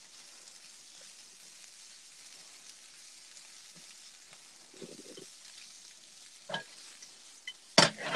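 Daikon, pork and green onions sizzling steadily in a frying pan, with a few sharp clicks near the end.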